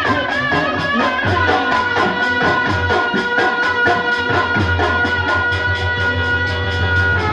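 Music with a steady beat: long held melody notes over a bass line, with a quick, even percussion tick.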